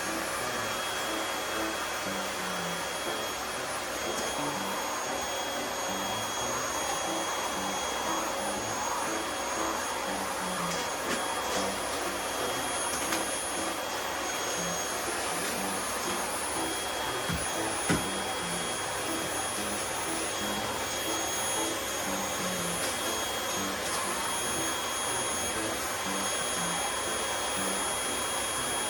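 Household vacuum cleaner running steadily, a constant rushing noise with a high motor whine. There is one sharp knock well past the middle.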